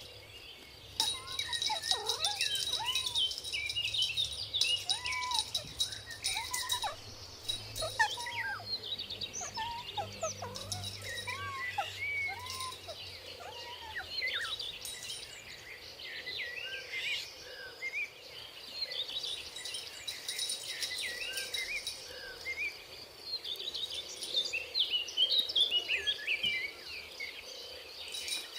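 Many small birds chirping and calling in quick, overlapping notes, over a steady high insect trill.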